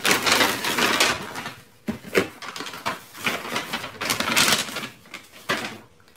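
Cardboard shoebox being handled and set down: irregular bursts of rustling and scraping, with a short knock about two seconds in.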